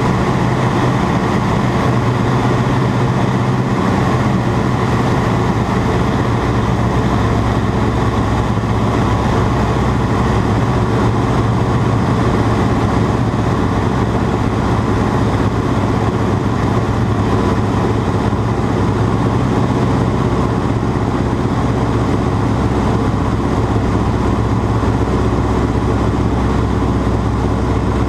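Ag Cat agricultural biplane's engine running steadily and loudly, with no change in pitch.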